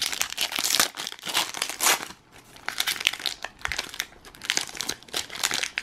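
Foil wrapper of a Pokémon trading-card booster pack crinkling and tearing as it is pulled open by hand. It is a run of irregular crackles with a short lull about two seconds in; the pack is stubborn to open.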